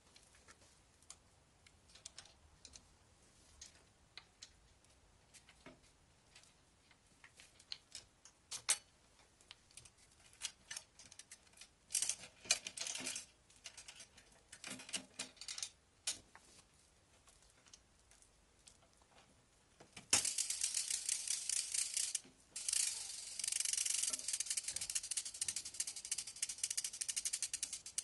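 Bicycle chain being fitted to the rear derailleur and cassette: scattered metallic clicks and short rattles of the links, then, about two-thirds of the way through, a long run of fast, dense clicking as the chain is worked through the drivetrain.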